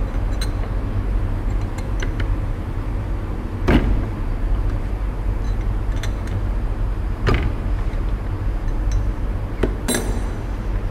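Steady low background hum with a handful of sharp metal clicks and clinks as a spanner wrench is fitted to and turned on the collet nut of a milling tool holder clamped in a tightening fixture. The loudest click comes a little under four seconds in, others about seven seconds in and twice near the end.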